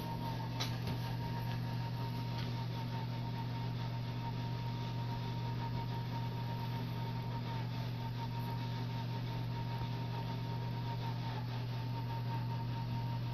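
Steady low hum with a thin steady high tone and a light hiss, with a single faint click about half a second in.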